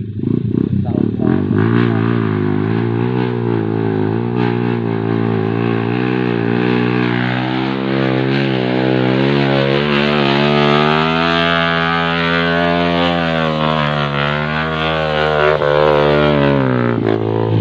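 Enduro dirt bike engine revving hard and unevenly under load on a slippery mud trail, its pitch rising and falling over several seconds, then dropping away and cutting out near the end.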